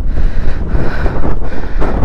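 Strong wind buffeting the microphone: a loud, uneven low rumble of gusts.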